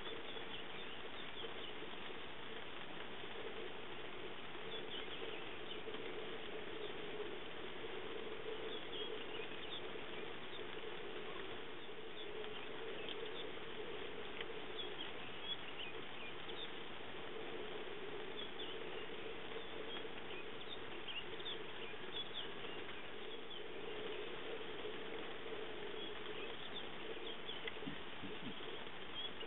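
Light rain pattering steadily, with a constant low hum underneath and scattered short, high chirps throughout.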